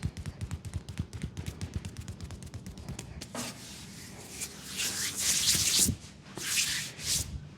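Fast percussive massage strokes on a leg, about seven taps a second. These give way to hands rubbing briskly over skin in a few loud rubbing strokes, the loudest about two seconds before the end.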